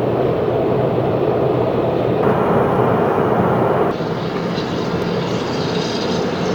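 Car driving on the road: steady road and engine noise heard from inside the cabin. It changes character abruptly about two seconds in and again about four seconds in.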